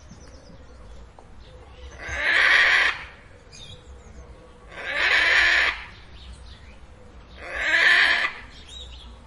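Parrot screeching: three harsh, loud screeches about a second long each, evenly spaced every two and a half to three seconds.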